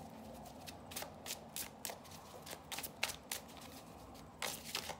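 A deck of tarot cards being shuffled by hand, with irregular light clicks of cards slipping against one another and a denser flurry near the end.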